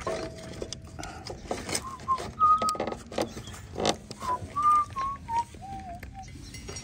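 A person whistling a short, wandering tune, with several sharp knocks from work on the rails of a set of points being packed level with wedges.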